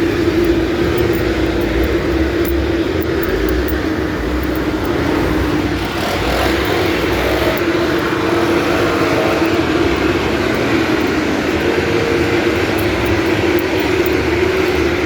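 Asphalt milling machine running and grinding up the road surface: a loud, steady drone with a constant hum that holds through.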